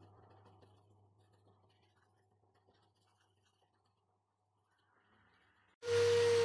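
Faint scratching of an abrasive block rubbed by hand against a steel pincer jaw. Near the end an electric drill fitted with a buffing wheel starts abruptly and runs with a loud, steady whine.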